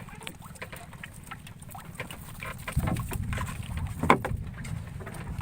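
Scattered knocks and clatter aboard a small wooden fishing boat over a steady low rumble, with one sharp knock about four seconds in.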